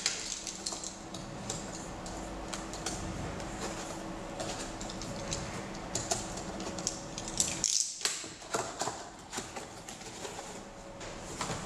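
A cardboard box being handled and opened: a box cutter scraping along the packing tape, then the cardboard flaps lifted, with irregular clicks, scrapes and rustles throughout.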